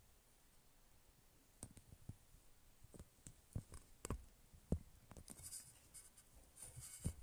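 Faint, irregular taps and soft rubbing from a smartphone being handled close to its microphone, with a few sharper clicks about four seconds in.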